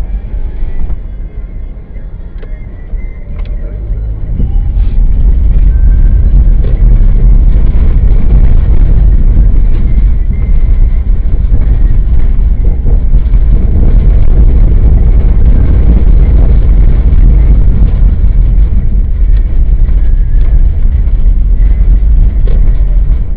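Engine and road noise of a moving car heard from inside the cabin: a steady low rumble that gets louder about four seconds in and then holds.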